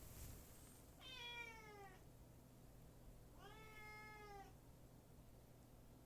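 A domestic cat meowing faintly in its sleep. There are two short meows: the first, about a second in, falls in pitch; the second, near the middle, is held level for about a second.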